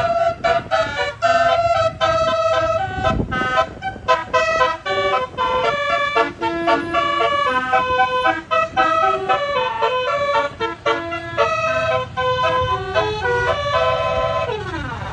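Bus 'telolet basuri' multi-note musical horn playing a quick melody, one short pitched note after another. Near the end it switches to a siren-like sweep, falling and then rising in pitch.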